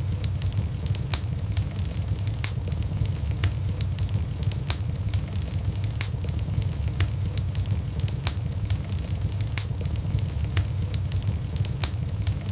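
Wood fire crackling in a fireplace: frequent irregular sharp pops and snaps of burning wood over a steady low rumble of the flames.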